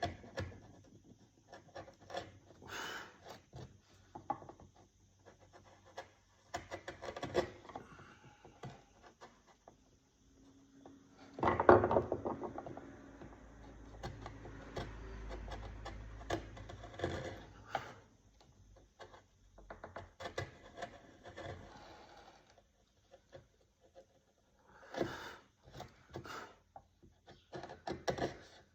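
Hand-carving wood: irregular scraping and rubbing strokes of a tool on wood, in clusters with short pauses, loudest about twelve seconds in.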